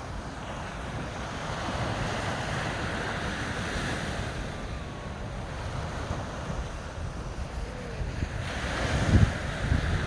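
Sea waves washing onto the beach, swelling about two seconds in and again near the end, with wind buffeting the microphone.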